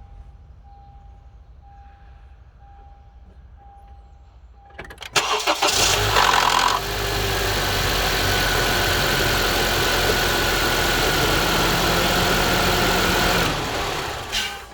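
2014 Honda CR-V's 2.4-litre four-cylinder engine cold-starting, after a repeating chime. About five seconds in the starter cranks briefly and the engine catches with a loud grinding rattle for about a second and a half, then settles to a steady fast idle until it is switched off near the end. The grinding at cold start continues even after the VTC actuator was replaced.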